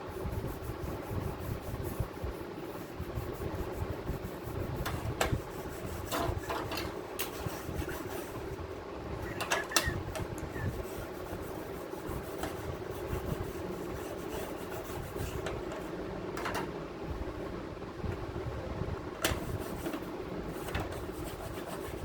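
A steady mechanical hum with a handful of sharp clicks and knocks scattered through it, about five of them.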